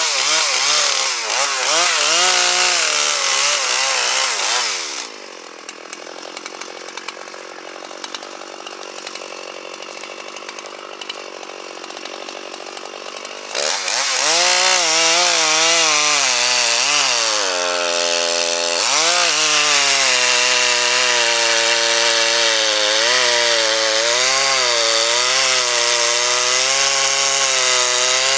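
Gas chainsaw running at full throttle and cutting wood, its pitch dipping and wobbling under the load of the cut. About five seconds in it drops back to a quiet idle. About thirteen seconds in it revs up again and keeps cutting, bogging down briefly to a lower pitch around eighteen seconds.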